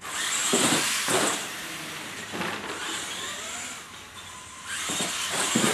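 Radio-controlled monster trucks driving, their electric motors whining and rising and falling in pitch, with several louder knocks.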